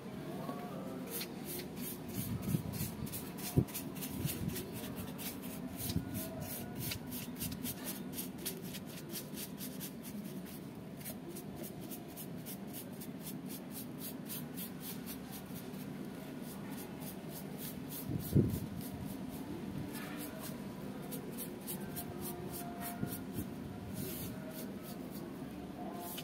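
A wide paintbrush laying wet Aquaproof coating onto a cosplay armor piece, its bristles swishing and scraping in quick repeated strokes. Two louder knocks come in, one a few seconds in and one past the middle.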